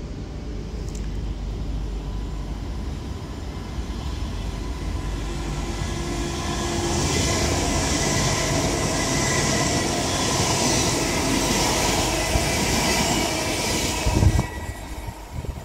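West Midlands Railway electric multiple unit running through the platform: a rumble of wheels on rail that builds from about six seconds in into a loud rush with a steady motor whine. It ends with a short thump and falls away quickly near the end.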